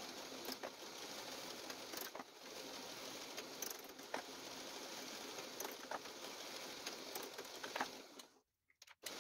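Benchtop drill press motor running steadily while the bit bores into the hardwood rocker, with scattered sharp clicks. The sound cuts out abruptly for under a second near the end, then the running noise resumes.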